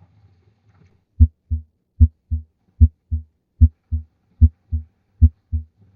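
Recorded normal heart sounds heard at the cardiac apex: paired lub-dub beats, S1 (closure of the mitral and tricuspid valves) followed by S2 (closure of the aortic and pulmonary valves), starting about a second in. The pairs come about every 0.8 s, roughly 75 beats a minute, and the first sound of each pair is the louder, as is typical at the apex.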